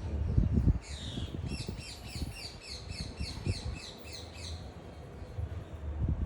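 A bird calling: a quick run of short, downward-sliding high notes, about three a second, lasting a few seconds. Low rumbling bursts on the microphone come near the start and near the end.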